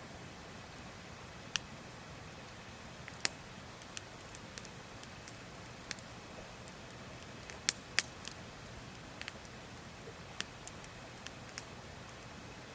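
Wood fire crackling, with irregular sharp pops and snaps, the loudest two about three and eight seconds in, over a steady hiss of a stream.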